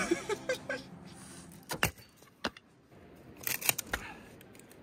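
Chopping: a few sharp knocks, a couple about two seconds in and a quick cluster a little later, either a knife on a cutting board or wood being split for kindling.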